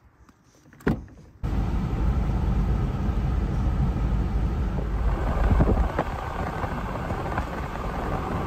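A single thump about a second in, then, starting abruptly, the steady road and engine noise inside the cab of a ute driving on the highway with a boat trailer in tow.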